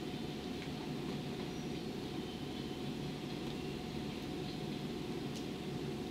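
JNR 115 series electric train running away into the distance: a steady low rumble with a faint constant hum.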